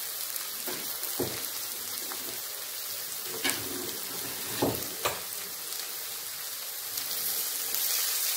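Sliced raw onions sizzling in hot oil in an iron wok while they sauté, with a few light knocks along the way. A spatula starts stirring them near the end and the sizzle grows a little louder.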